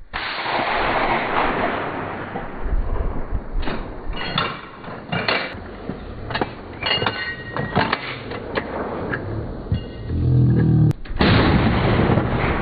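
Gunshots from small arms on a firing range: a run of about ten sharp reports at an uneven pace, over steady outdoor noise. Near the end there is a brief low drone.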